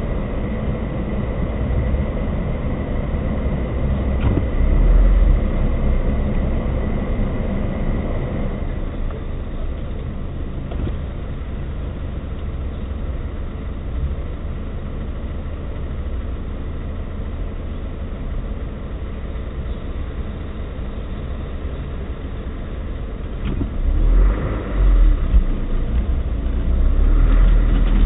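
Suzuki Jimny engine running at crawling speed over rough ground, heard from inside the cabin, with a few short knocks. Near the end the low rumble surges louder as the vehicle moves off.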